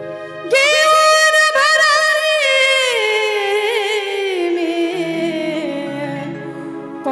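A woman singing into a stage microphone: she comes in about half a second in on a long, high held note with vibrato, then slides down in pitch. Behind her is a steady held-note instrumental accompaniment, with low bass notes coming in near the end.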